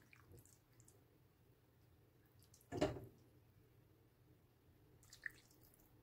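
Soup being ladled into a ceramic bowl: soft pouring and dripping of liquid, with one short louder splash of a ladleful landing about three seconds in.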